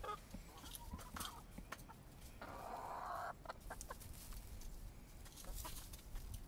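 Chickens clucking softly, with scattered sharp taps and a brief burst of noise a little before the middle.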